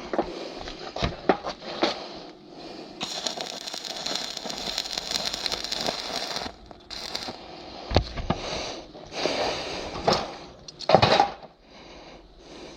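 Electric arc welding on steel, the arc crackling and hissing steadily for about three and a half seconds in the middle, with short bursts and sharp metallic knocks before and after it.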